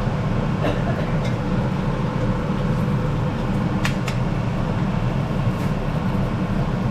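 Steady low rumbling noise of the deep-frying setup, with a handful of short sharp clicks in the first half, as battered fish cooks in hot oil.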